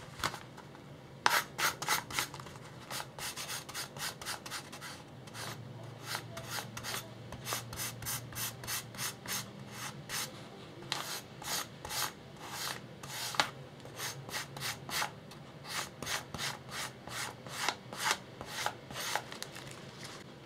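A freshly sharpened chef's knife with a 1200-grit edge slicing through folded newspaper. The blade makes many quick crisp cutting strokes in runs, a few per second.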